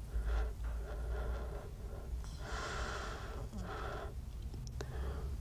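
A teenage boy crying quietly: a run of ragged, breathy sobs and sniffs, about one a second.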